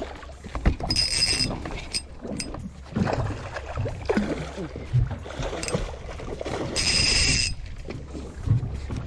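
Two short, high-pitched buzzes of a spinning reel's drag clicker as line is pulled off, about a second in and again near seven seconds, among knocks and handling clatter on a small boat. The drag is set tight.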